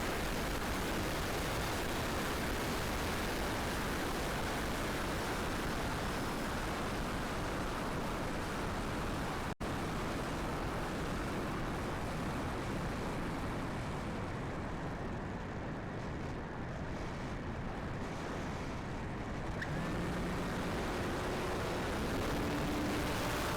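Strong wind rushing and buffeting on the microphone, a steady noisy roar that cuts out for an instant about ten seconds in.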